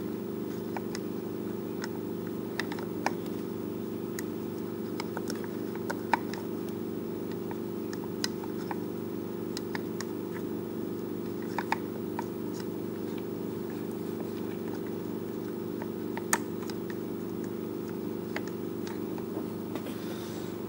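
Scattered light clicks and taps of a steel pick and pliers working in a Stihl FS56RC's plastic recoil starter housing as the pull cord is fed through, over a steady low hum.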